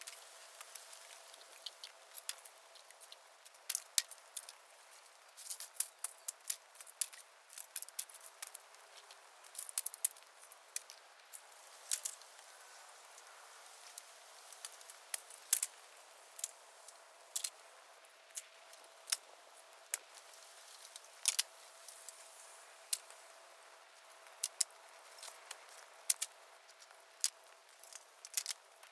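Dead, dry bamboo burning on an open bonfire, crackling with irregular sharp pops over a faint steady hiss.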